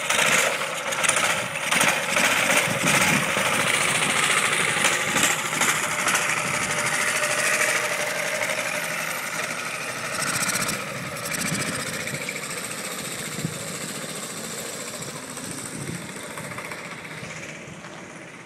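The 200cc engine of a Doodlebug minibike running at high revs as the bike rides past. It is loudest in the first half, then fades steadily as the bike moves away.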